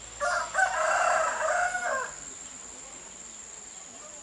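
A rooster crowing once, a call of about two seconds starting just after the beginning, over a steady high insect hum.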